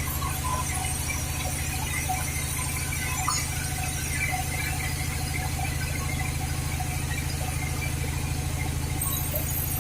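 Sawmill machinery running steadily with a low, pulsing hum, with high squeaks and squeals over it as mahogany is sawn.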